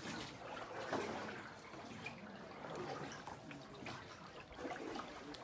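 Water lapping and trickling against a small rowing boat's hull, with scattered faint splashes and clicks.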